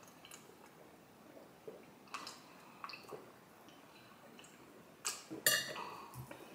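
Drinking cups and a bottle being handled: scattered light clicks and taps, then two sharper knocks about five seconds in.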